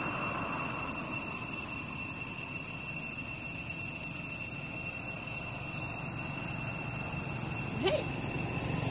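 Insects calling in a steady, unbroken chorus of high tones, with a short rising-and-falling animal call near the end.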